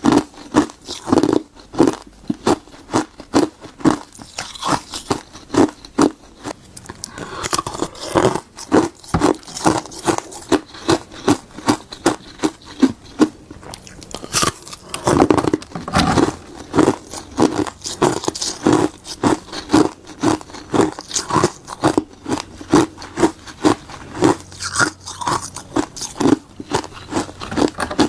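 Ice made from frozen bitter-buckwheat tea being bitten and chewed close to the microphone. It makes a continuous run of crisp, cracking crunches, about two a second.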